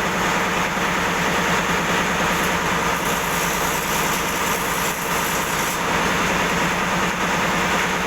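Steady machine noise: a constant hum under an even hiss, with no change throughout.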